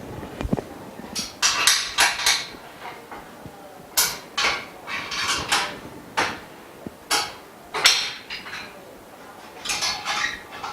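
Irregular knocks and clatter of the frame bars and parts of a dust-free room workstation being handled and fitted together during assembly, about a dozen sharp hits with short ringing.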